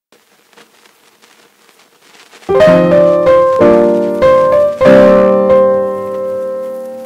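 Background piano music: after a quiet start, chords begin about two and a half seconds in, struck one after another and left ringing.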